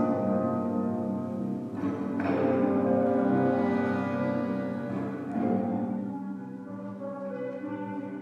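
A small orchestra playing contemporary concert music: sustained chords, with struck, ringing accents about two seconds in and again about five seconds in, growing softer toward the end.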